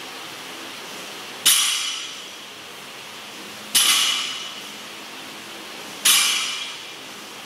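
Loaded barbell with iron plates set down on the floor between sumo deadlift reps: three sharp metallic clanks a little over two seconds apart, each ringing briefly, over a steady background hiss.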